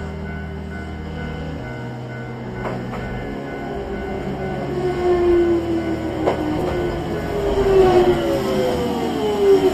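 A train running, with a few sharp clicks and a whine that falls in pitch through the second half.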